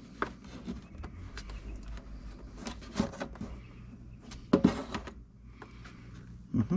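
Scattered clicks and clunks of parts and hand tools being handled while a golf cart's fuel pump and hoses are fitted, with the loudest knocks about four and a half seconds in and again near the end. A faint steady low hum runs underneath.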